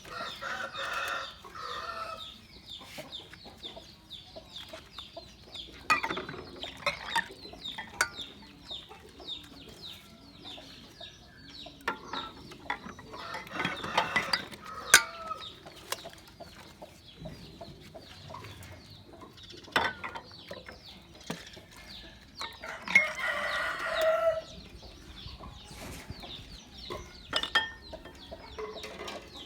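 Animal calls: a steady run of short, quick chirps, with several louder, longer calls breaking in, the loudest a little over a second long, about three quarters of the way through.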